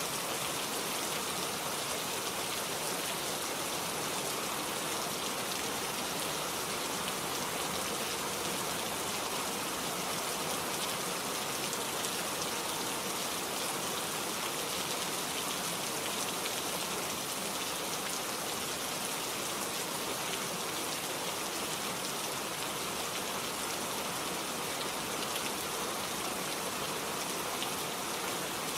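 Steady rainfall in a forest, a dense even patter of drops landing on foliage and ground.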